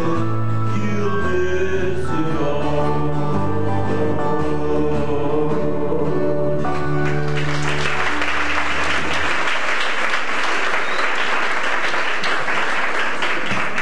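A country gospel band of guitars and bass, with a singer, plays the last bars of a song. About seven seconds in, the music ends and the audience breaks into applause.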